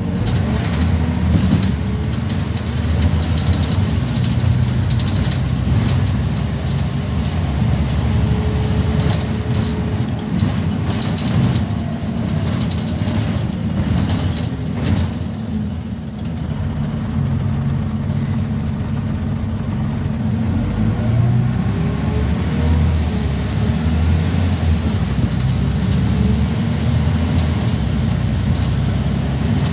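Scania N94UB single-decker bus heard from inside the passenger saloon while on the move: a steady low engine and road rumble, easing briefly about halfway through, then a rising whine as it picks up speed again.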